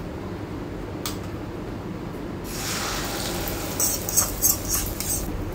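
Beaten egg frying in hot oil in a flat pan: a sizzling hiss starts about halfway in. Near the end it turns to sharp crackling and spitting as more oil is drizzled onto the omelette.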